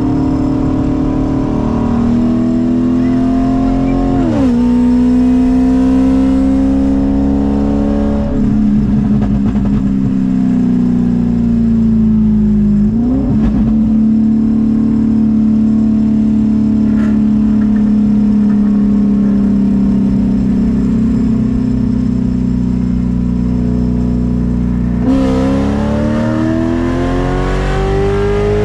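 Straight-piped Corvette C6 V8 with long-tube headers, loud under acceleration: its pitch climbs and drops sharply at a gear change a few seconds in. It then settles into a steady drone for a long stretch and climbs again near the end.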